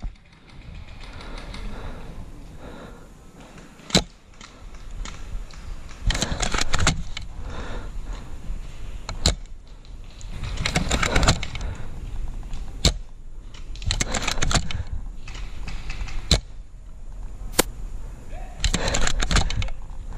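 Single sharp airsoft gun shots, about five of them a few seconds apart, with bursts of rustling and shuffling movement between them.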